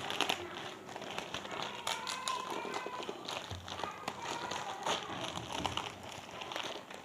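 Parcel packaging rustling and crinkling in irregular crackles as it is opened by hand.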